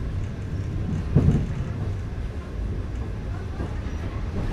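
Passenger train running on the rails, heard from inside the carriage: a steady low rumble with one louder knock about a second in.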